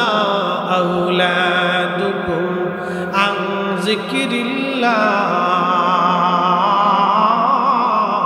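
A man's voice chanting an Arabic Quranic verse in a slow melodic style, phrases breaking off about three and five seconds in, then one long wavering held note over a steady low drone.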